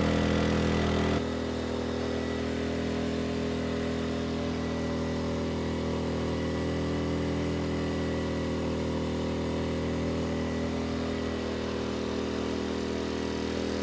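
Erayak 4500PD inverter generator's 150 cc engine running steadily under a 3,500-watt load, near its maximum rating, holding its speed without issue. The level drops slightly about a second in.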